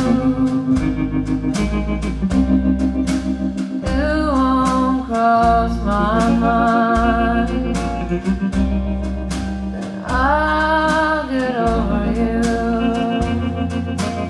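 A slow pop-jazz song played from a vinyl record through Tannoy Canterbury SE loudspeakers: a singer's voice gliding between held notes over a bass line and a steady drum beat.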